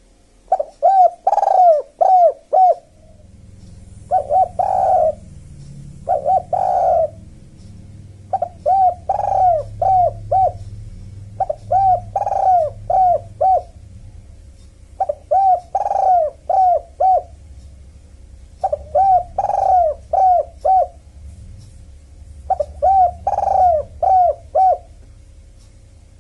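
Spotted dove and collared dove cooing in repeated phrases of three to five short coos, a phrase every three to four seconds. A low rumble runs underneath through most of it.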